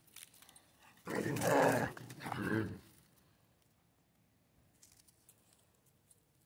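A Central Asian shepherd dog growling, starting about a second in and lasting nearly two seconds in two parts.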